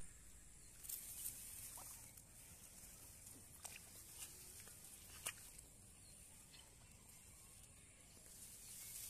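Near silence: faint scattered clicks and patter of hands working in wet mud, over a faint steady high hiss.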